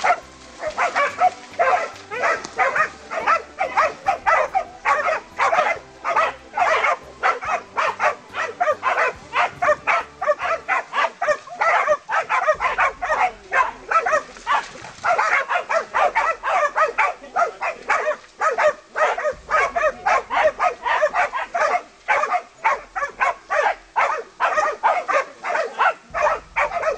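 Several hunting dogs barking rapidly and without pause, their barks overlapping as they hold a wild boar at bay.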